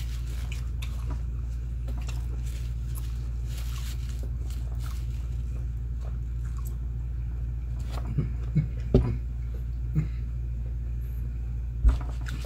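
A steady low hum of room noise, with a few short mouth sounds of eating from about eight seconds in and a brief thump near the end.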